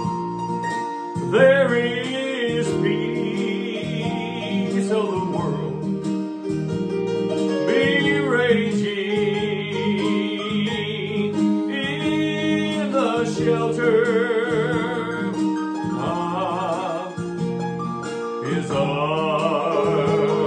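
A gospel song: a voice sings long held notes with a wavering vibrato, in phrases a few seconds long, over a steady instrumental accompaniment.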